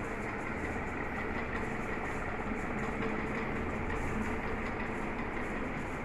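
A 1996 Khaitan Magnate 48-inch three-blade ceiling fan running at speed: a steady whir of blade air noise with a faint motor hum.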